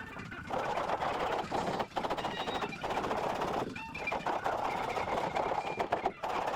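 Hand rasp filing the squared end of a wooden table rail into a round-over, in repeated rough strokes about a second long with brief pauses between them.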